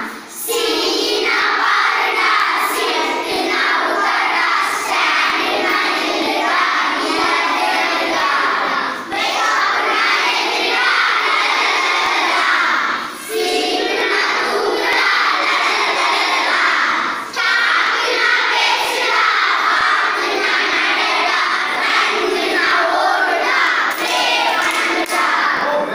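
A class of schoolchildren singing a verb song together in unison, in loud repeated phrases with short breaks about every four seconds, clapping along near the end.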